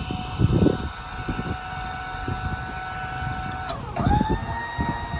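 A service-truck crane being operated by wireless remote gives a steady mechanical whine. About four seconds in, the whine dips and then settles at a higher pitch as the crane changes motion. Wind gusts across the microphone underneath.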